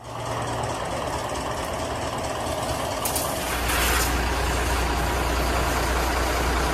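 Water jet from a pressure-washer hose spraying against a truck's cab and wheel, a steady hiss that swells briefly about three seconds in. A low steady hum joins about three and a half seconds in.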